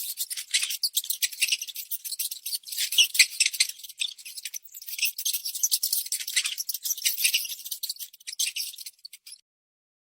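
Mouse squeaking and chittering: a fast, uneven stream of tiny high-pitched squeaks and clicks that stops shortly before the end.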